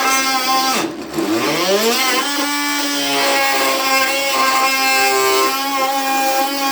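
Ryobi brushed cordless oscillating multi-tool with a wood blade, running in a 2x6: a steady buzzing hum that cuts out about a second in, then winds back up in pitch to full speed and holds steady.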